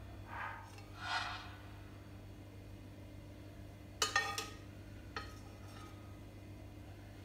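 Two short soft hisses near the start, then a metal spoon clinks against a glass mixing bowl about four seconds in, ringing briefly, with a lighter clink about a second later.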